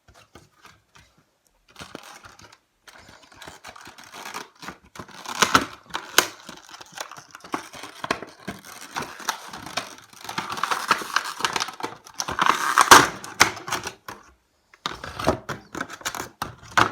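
Toy packaging and playset parts being handled: irregular clicks and taps with bursts of rustling and crinkling, picking up after a few quiet seconds and loudest past the middle, with a short pause near the end.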